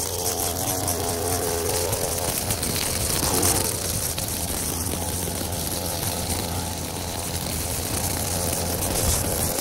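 String trimmer running steadily, its line cutting grass, with a broad hiss over a low steady hum.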